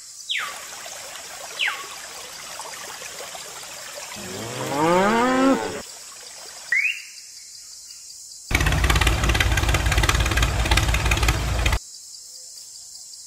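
A cow mooing once, a drawn-out call that rises and falls in pitch, between short falling chirps. Near the end comes a loud, rapidly pulsing rumble lasting about three seconds.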